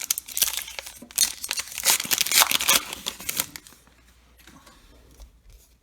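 A baseball card pack wrapper being torn open and crinkled by hand, a loud crackling for about three and a half seconds that then dies down to faint rustling.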